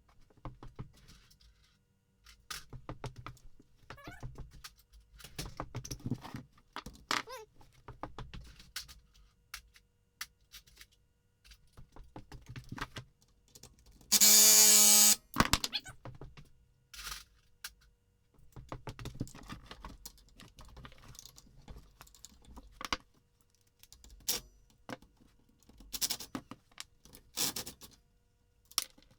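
Hand tools and metal parts clinking, clicking and knocking as a 1999 Honda FourTrax 300 4x4's rear end is taken apart. About halfway through comes one loud burst lasting about a second.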